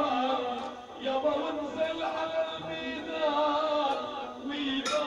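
Background music with a man singing in a Middle Eastern style, and one sharp click near the end.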